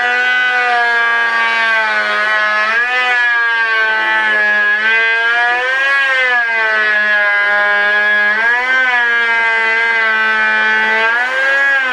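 Electric hand planer running with a loud, steady whine while planing a chainsaw-milled board, its pitch sagging and recovering about every three seconds.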